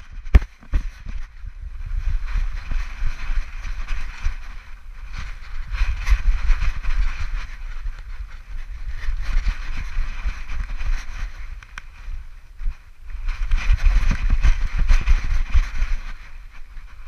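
Wind buffeting and rustling on a camera strapped to a running dog's back, with a heavy rumble and a hissy rustle. It swells about six seconds in and again near the end.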